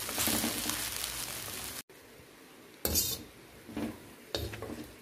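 Stir-fried vegetables and rice noodles sizzling in a wok as a spatula tosses them; the sizzle cuts off suddenly about two seconds in, followed by three brief scrapes and clinks of the spatula against the wok.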